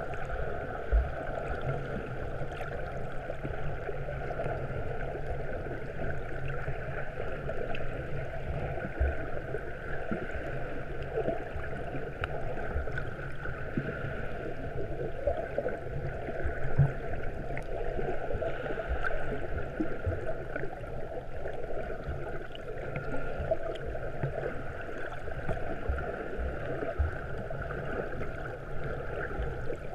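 Muffled underwater noise heard through a waterproof camera housing: a steady wash of moving water with scattered low knocks.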